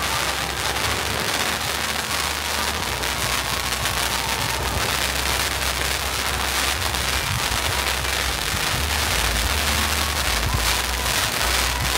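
Giant fountain firework spraying sparks, with a loud, continuous crackling hiss that holds steady throughout.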